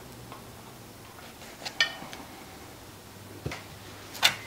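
A few light clinks and taps of a metal knife and spatula against a foil pie pan while a pie is cut. The loudest clink comes near the end, as the spatula is picked up.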